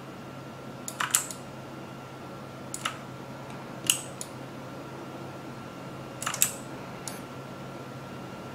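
About half a dozen sharp clicks from a computer mouse and keyboard, some in quick pairs, spread out over a few seconds above a low steady hum.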